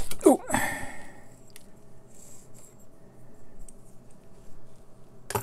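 Small plastic cable block being handled with the lamp's wires in it: a sharp click, a short squeak falling in pitch and a brief scrape, then light ticks and another click near the end. The wires graunch in the roughly made block, which gouges their insulation.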